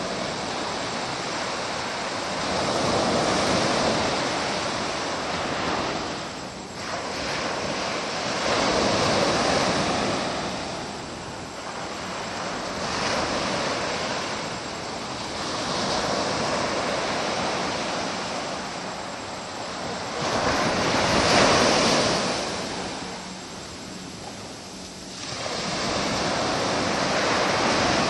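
Ocean surf breaking on a beach, the wash rising and falling back in slow swells several seconds apart.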